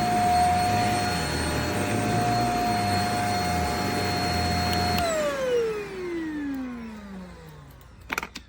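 JPHYLL Ultra-UVC-K16 mattress vacuum running with a steady whine. About five seconds in it is switched off, and the motor winds down in a falling whine over a couple of seconds. A couple of sharp clicks come near the end.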